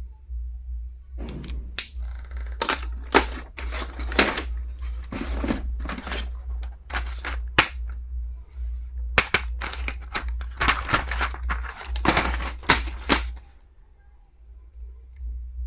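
A quick series of sharp clicks and knocks, like hard plastic stationery items being handled and set down, stopping about two seconds before the end. A steady low hum runs underneath.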